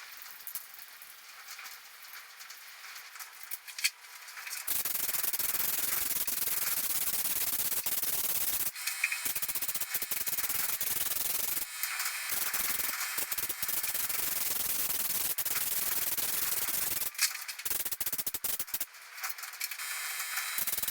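Compressed-air spray gun hissing as coating is sprayed onto the truck's prepped sheet-metal panels. The hiss starts loudly about five seconds in, then stops and restarts several times as the trigger is released and pulled again.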